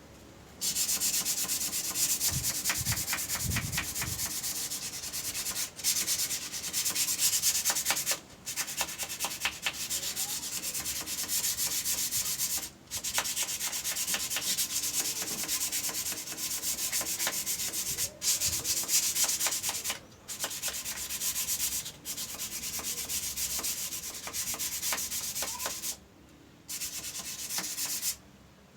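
Sandpaper rubbing over sealer-coated wood in runs of a few seconds, broken by short pauses: a coat of sanding sealer being sanded smooth before varnish.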